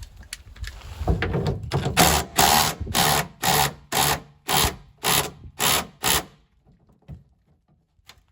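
Ratchet wrench worked in nine quick strokes, roughly two a second, after about a second of lower rubbing noise; it stops about six seconds in.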